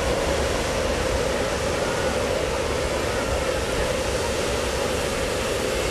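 Hot air balloon inflator fan running steadily: a loud, even rush of air with a constant hum, blowing cold air into a balloon envelope as it fills.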